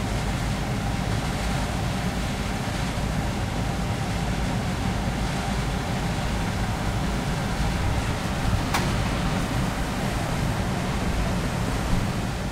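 Steady outdoor background noise: a low rumble with hiss throughout, and one short click about nine seconds in.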